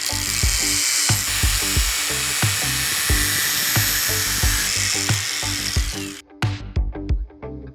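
Background music with a steady beat. Over it, a high-pitched whirring noise from a small high-speed motor runs and cuts off suddenly about six seconds in.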